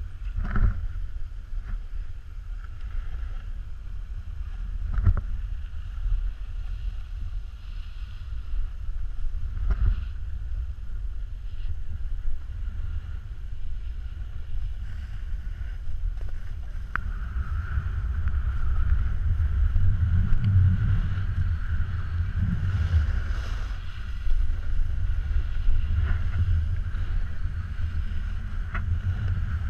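Wind buffeting a pole-mounted action camera's microphone as a snowboard slides down a groomed piste, with the board scraping the snow. The rumble and scrape grow louder about halfway through, and there are a few knocks.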